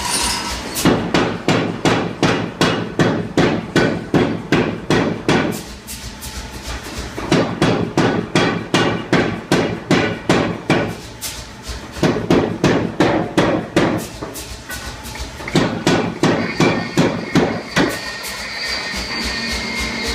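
Sahinler 60 kg power hammer pounding a large bar of hot steel in runs of rapid blows, about three a second, with short pauses between the runs. The blows stop near the end.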